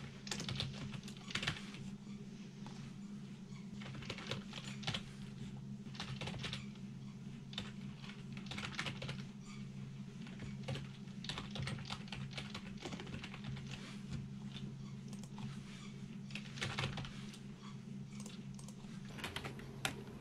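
Fast, continuous typing on a backlit computer keyboard, a dense irregular patter of key clicks, over a steady low hum.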